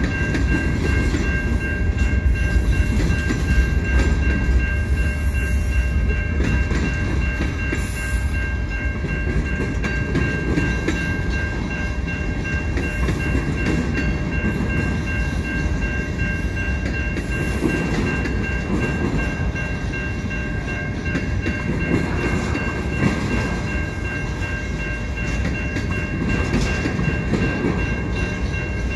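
Slow freight train cars rolling past, with a steady low rumble and wheel clatter over the rails. Steady high-pitched tones ring throughout.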